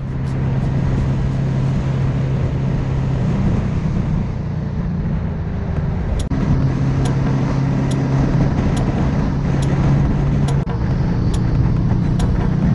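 Motorcycle engine running at steady road speed, with wind rushing over the onboard camera's microphone. The engine note drops back for a few seconds mid-way and falls away briefly about three-quarters through.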